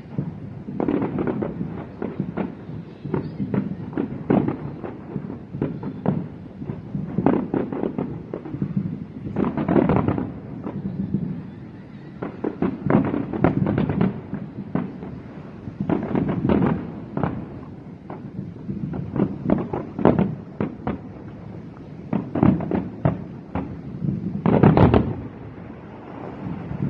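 Aerial fireworks display: many shells bursting in rapid, irregular clusters of bangs over a low rumble. A loud cluster of bangs comes near the end.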